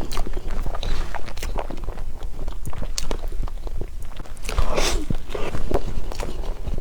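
Close-miked eating of sesame crepe cake: soft chewing with many small mouth clicks, and a longer, louder noise about five seconds in.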